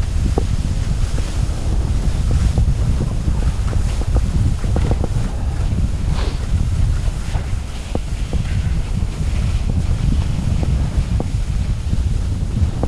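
Wind buffeting the camera microphone during a fast ski descent: a loud, steady low rumble. Skis scraping over the snow add a hiss and scattered clicks.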